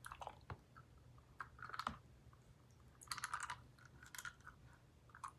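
Faint, scattered small clicks and taps in a few short clusters: a die-cast toy car being dipped and handled in a plastic tub of water.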